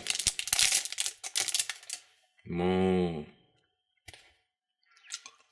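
Plastic candy wrapper crinkling and crackling for about two seconds as it is handled and opened, then a short hummed "mmm", and a couple of faint clicks near the end.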